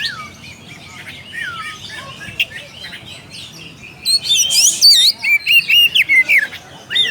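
Oriental magpie-robin (kacer) singing a varied run of whistles and chirps, its challenge call to a rival male. The notes are sparser and quieter at first, then come louder and faster from about four seconds in.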